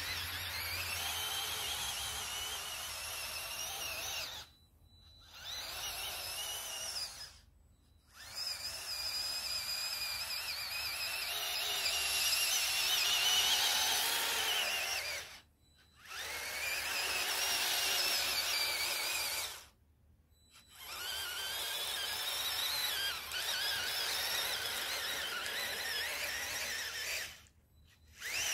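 Electric motors and gear train of a Lego Technic John Deere 8R model whining as it drives, with a pitch that drifts up and down. The whine runs in stretches of a few seconds, broken by several short stops.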